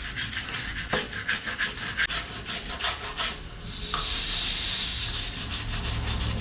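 Wire brush scrubbing a stainless steel funnel clean of grime around its cracks, in rapid back-and-forth scraping strokes. A little under four seconds in, these give way to a steadier hiss.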